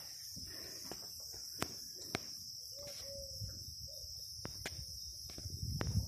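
Steady, high-pitched chorus of insects, with a few sharp clicks.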